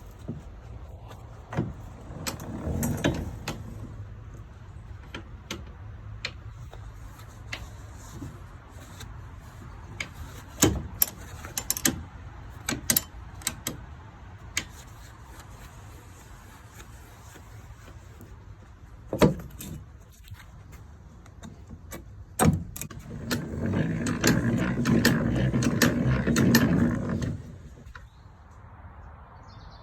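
Old blacksmith's post drill being worked: scattered metallic clicks and knocks from its gears and fittings, then a few seconds of louder, steady grinding noise about three-quarters of the way through before it stops.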